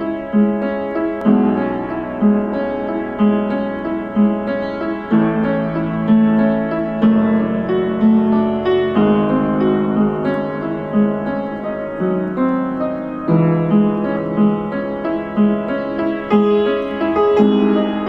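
Slow solo piano music, with notes and chords struck about once a second and left ringing.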